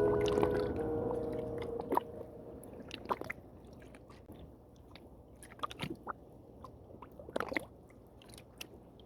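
The closing notes of a song fade out over the first two seconds, leaving faint, irregular clicks and small squishy ticks.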